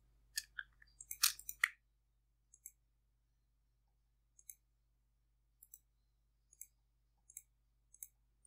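Computer mouse clicking: a quick flurry of sharp clicks in the first second and a half, then single soft clicks about once a second.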